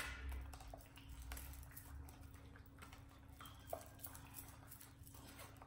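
Faint, scattered light clicks and scrapes of a metal ladle working against a stainless steel mesh strainer while pressing thick tomato gravy through it, over a steady low hum.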